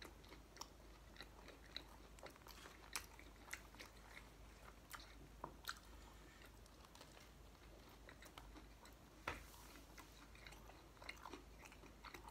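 Faint chewing of French bread pizza: a person biting and chewing, with irregular soft crunches and clicks, the sharpest one about nine seconds in.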